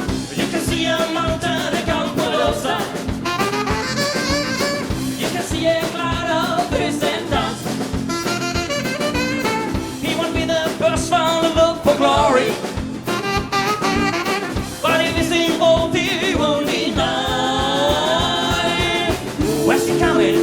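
Live band playing an upbeat instrumental passage: a drum kit keeps a steady, busy beat under bass, guitar and a bright lead melody line.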